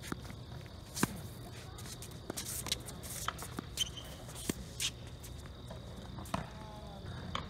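Tennis ball struck by racquets and bouncing on a hard court during a rally: a string of sharp pops, irregularly spaced, the loudest about a second in. Players' shoes shuffle and scuff on the court between shots.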